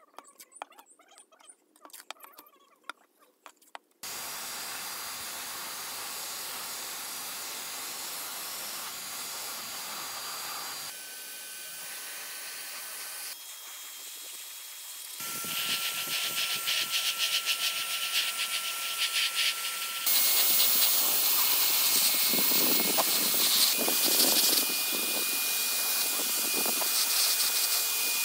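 Faint clicks as paper masking tape is pressed onto the metal box, then a handheld paint spray gun spraying: a steady hiss with a thin whine. It breaks off and starts again at different levels several times and is loudest near the end.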